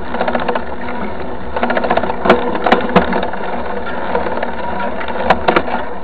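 Mountain bike coasting on asphalt: the freewheel hub ticks rapidly in short spells. A few sharp knocks come from the bike rattling, over a steady low rumble of wind and tyres.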